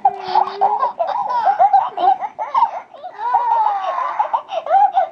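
Hatchimals interactive toy's electronic baby voice, chirping and giggling in a quick run of short rising-and-falling squeaks.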